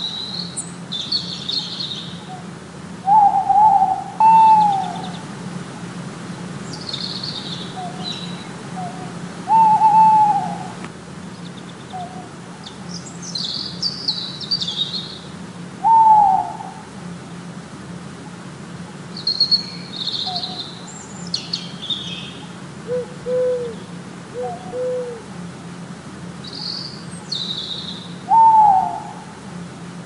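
An owl hooting: short hoots that rise and fall in pitch, alone or in pairs, every several seconds, with small birds chirping high above them and a steady low hum underneath.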